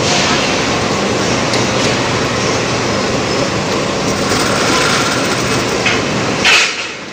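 Steady factory machinery noise in a plough-disc heat-treatment workshop, with a low electrical hum underneath. A brief, louder hiss comes about six and a half seconds in.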